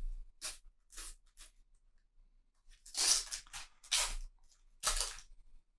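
Sticker packets being torn open by hand: a few short rips, then three longer, louder tears about a second apart.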